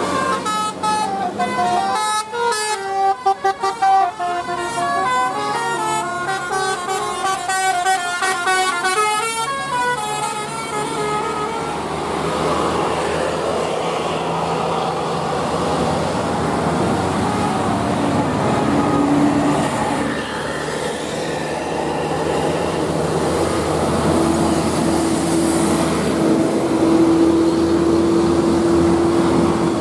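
Indonesian bus 'telolet basuri' multi-tone air horn playing a stepped melody for about the first ten seconds, then bus engine and traffic noise with a low steady tone near the end.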